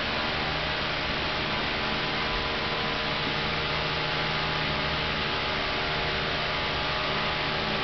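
A steady hum over an even hiss, unchanging, with no distinct events standing out.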